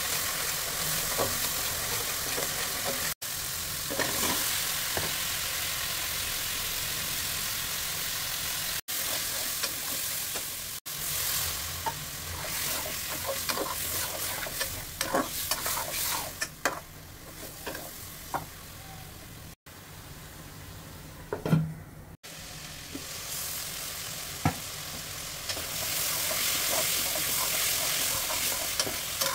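Spice paste and vegetable pieces sizzling in hot oil in a metal wok, with a spatula stirring and scraping against the pan. The sizzle dies down for a few seconds past the middle, then picks up again near the end.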